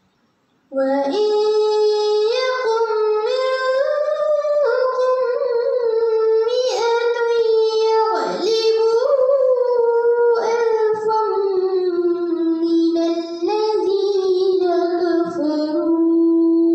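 A girl reciting the Quran in tarannum, the melodic chanted style. Her voice comes in just under a second in and carries one long phrase of held notes that step up and down in pitch with ornamental turns, settling onto a long low held note near the end.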